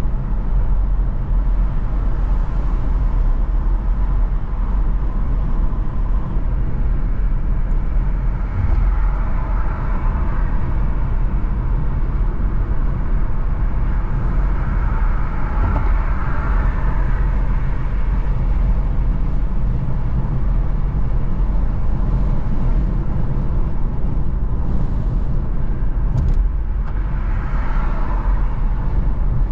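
A car driving on city streets: a steady low rumble of engine and road noise, with short swells of louder noise about ten seconds in, around sixteen seconds and near the end, as of other traffic passing.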